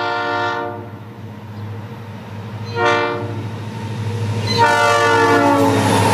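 Diesel freight locomotive's air horn sounding for a grade crossing: a blast at the start, a short one about three seconds in, and a longer one from about four and a half seconds in, over the steady low rumble of the engine. The noise of the locomotive and its cars rolling past the crossing builds near the end.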